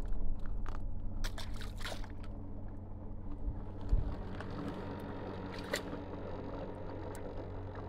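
Water splashing and trickling at the lake edge as crappie are let go into the shallows, over a steady low hum. There is a soft low thump about four seconds in.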